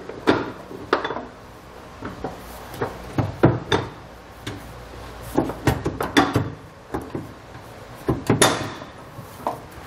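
Metal spacer block being worked into a tight gap between a truck frame bracket and the bed floor, around a carriage bolt: irregular metal clinks and knocks, with a longer scrape about eight and a half seconds in.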